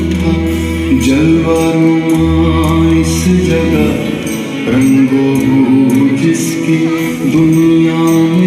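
Music: held melodic notes over a low drone that stops about halfway through, with light percussion.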